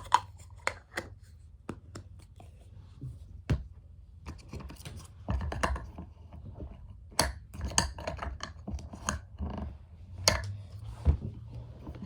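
Irregular clicks, taps and scratching from hands working with Play-Doh and its tools.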